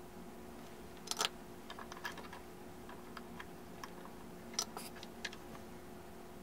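Scattered light clicks and knocks of handling: the circuit board is repositioned in the plastic clamp jaws of a helping-hands vise. The loudest come about a second in and again past the halfway point, over a faint steady hum.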